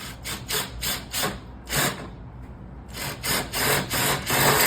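A series of short scraping, rubbing strokes on a hard surface, about three a second, in two runs with a pause in between.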